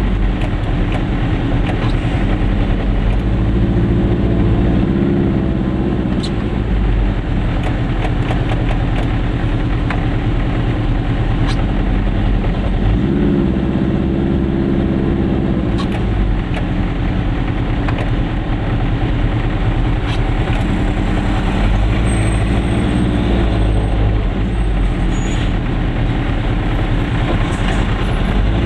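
Goggomobil's small two-stroke twin engine running, heard from inside the car. Its note swells and shifts in pitch a few times.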